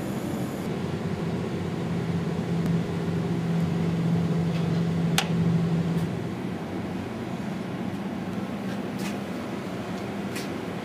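CNC machining center face-milling aluminium: steady machine noise with a low hum that is strongest for the first six seconds, then drops away. A few sharp clicks.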